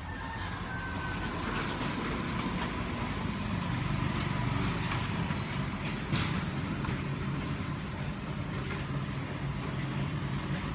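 Steady low rumble of motor-vehicle noise, with a faint click about six seconds in.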